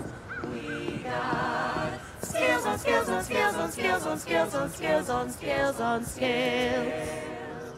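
A choir singing a cappella in harmony: a held chord, a run of short sung notes, then a long held chord with vibrato near the end.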